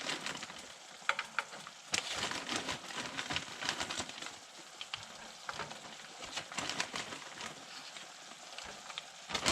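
Venison and onions sizzling in a hot frying pan as frozen mixed vegetables are laid in, with a steady frying hiss and scattered sharp clicks and pops.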